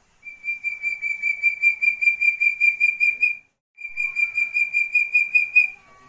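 Young Javan hill partridge (puyuh gonggong) calling: two long runs of rapid, evenly pulsed whistles on one high pitch, with a brief break between them.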